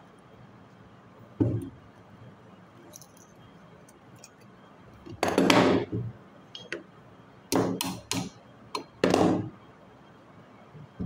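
Pliers and metal parts clinking and knocking against a car AC compressor's clutch and the workbench. There is one knock about a second in, then a run of short clanks and clatters in the second half.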